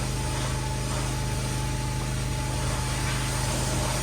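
Steady low machine hum, like a motor running evenly, with a faint thin tone above it and no change in pitch or level.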